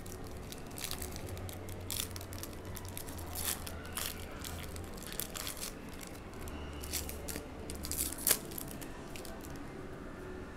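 A trading-card pack wrapper being torn open and crinkled by hand, with scattered crackles and one sharper crack about eight seconds in.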